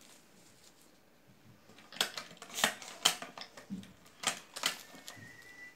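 Sharp metallic clicks and clacks of a hand-operated cigarette tube-filling machine being worked, starting about two seconds in, eight or so strokes in quick succession.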